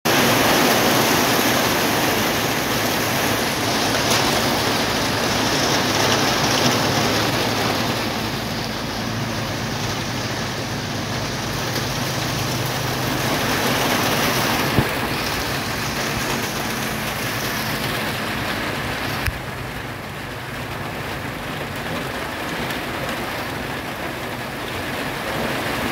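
Light rain falling with an even hiss, turning a little quieter about two-thirds of the way through, just after a sharp click.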